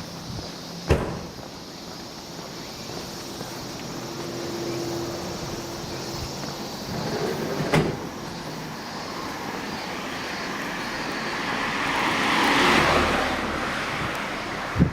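Outdoor street ambience with two sharp knocks, about a second in and again near eight seconds, and a passing vehicle whose noise swells up and fades away near the end.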